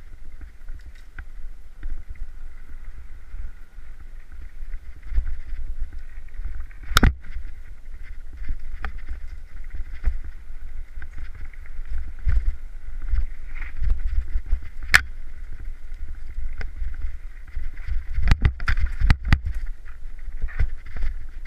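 Mountain bike riding fast down a rocky dirt trail: wind rumbling on the camera's microphone, tyres rolling over dirt and loose stones, and sharp knocks and rattles from the bike hitting rocks, the loudest about seven and fifteen seconds in and a quick cluster near the end.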